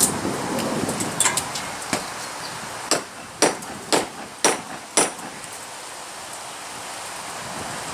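A run of about seven sharp strikes, roughly two a second, stopping about five seconds in: nails being driven into wood.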